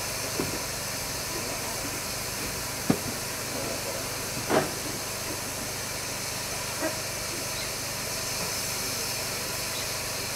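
Steam locomotive hissing steadily as steam escapes at its side, while it stands on a turntable being pushed round by hand. A few short knocks stand out, the loudest about 3 and 4.5 seconds in.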